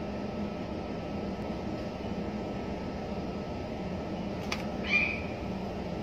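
A blue-backed parrot gives one short call about five seconds in, just after a faint click, over a steady low background hum.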